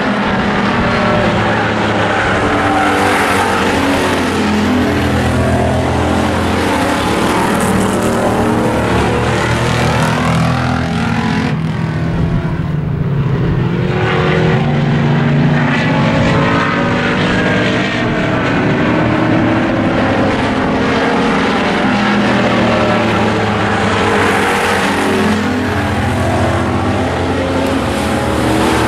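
A pack of hobby stock race cars racing around an oval, several engines running hard at once. The sound rises and falls as the cars come by and go away, and grows duller for a moment about halfway through.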